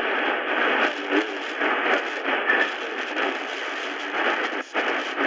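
Shortwave static and hiss from the Prunus J-150 BTS radio's speaker while it is tuned across the band. A few faint, brief fragments of a weak signal break through the noise.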